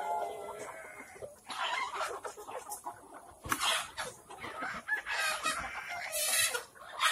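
A flock of Kadaknath chickens clucking and squawking in irregular bouts, with a held call at the very start.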